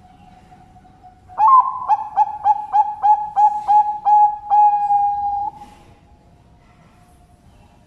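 Zebra dove (perkutut) cooing: a rapid run of about nine short coos, roughly three a second, ending in one long held coo. Fainter cooing from another dove sounds underneath.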